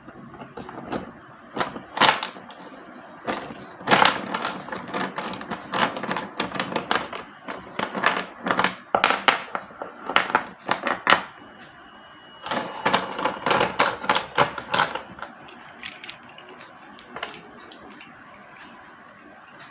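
Slate pencils being bitten and chewed: runs of sharp, dry crunches and snaps in close clusters, thinning to a few scattered crunches for the last few seconds.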